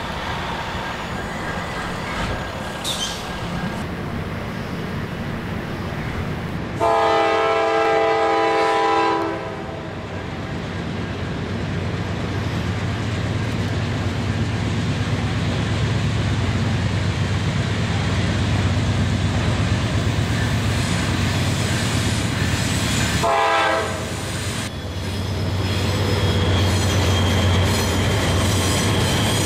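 Norfolk Southern diesel-electric locomotives running, with a steady low engine rumble and rolling wheels on rail. A multi-tone air horn sounds a long blast of about two and a half seconds, seven seconds in, and a shorter blast near the end.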